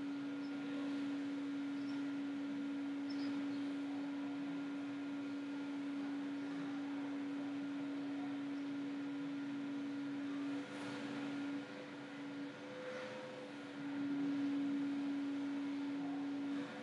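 Steady electrical hum from the computer: one constant mid-pitched tone over a light hiss. It weakens for a few seconds past the middle and then returns.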